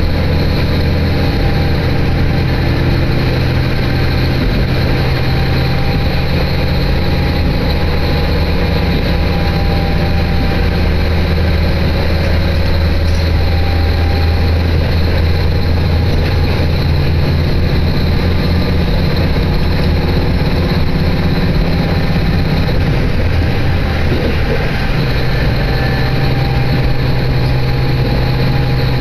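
Steady running noise of a diesel railcar heard from inside the cabin: a low engine hum with the rumble of the train on the rails. The engine note shifts briefly about three-quarters of the way through.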